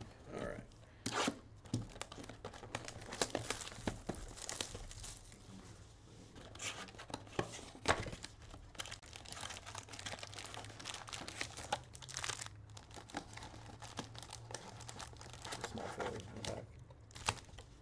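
Panini Select soccer card pack wrappers being torn open and crinkled, a run of short rips and rustles.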